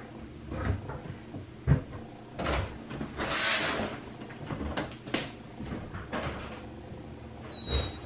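Handling noise: a string of light knocks and thumps, a short rustle around the middle, and a brief high squeak with a knock near the end.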